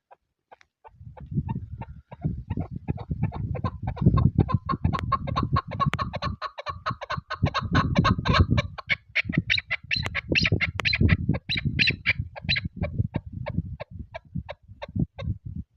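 Chukar partridge calling a long, rapid series of clucking notes, about five a second, that grows louder through the middle and rises in pitch in the second half. Wind gusts rumble on the microphone underneath.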